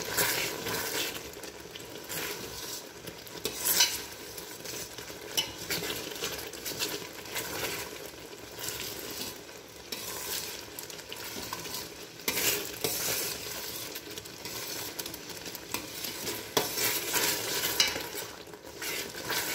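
Spatula stirring and scraping thick, bubbling milk around a steel pot, with a steady sizzle and irregular sharper scrapes against the metal. The milk has reduced almost to khoa for palkova and is stirred without stopping so it does not scorch on the bottom.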